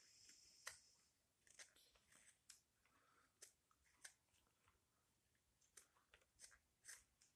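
Straight carving knife slicing thin shavings from the back of a wooden spoon bowl in light blending cuts: faint, short crisp cutting sounds at an irregular pace of about one or two a second, with a longer hissing cut in the first second.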